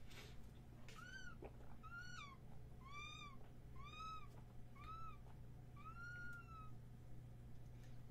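Six short, high-pitched calls about a second apart, each rising and falling in pitch like an animal's, the last one drawn out longer. A faint steady hum runs underneath.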